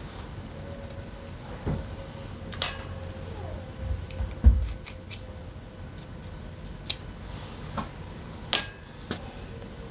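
Scattered metallic clicks and clinks with a few dull knocks as hand tools and parts are handled during a scooter engine teardown. The loudest is a sharp metal clink with a brief ringing, near the end.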